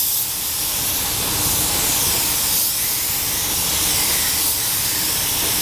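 Air-fed, gravity-cup paint spray gun hissing steadily as it sprays paint along a car's side panels.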